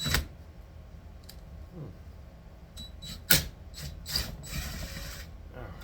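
Tools working the rusted steel screws out of a Square D contactor: a few sharp metallic clicks and knocks, the loudest about three seconds in, then a brief scraping, grinding stretch near the end.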